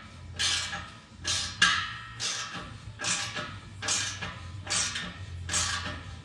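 Hand ratchet loosening bolts: a quick burst of ratchet clicks on each return stroke, about seven strokes at a steady pace of a little more than one a second.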